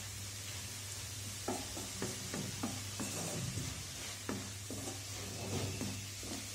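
Wooden spatula stirring and scraping red amaranth stir-fry with grated coconut around an aluminium kadai, short strokes repeating two or three times a second from about a second and a half in, over a steady sizzle as the last of the water cooks off.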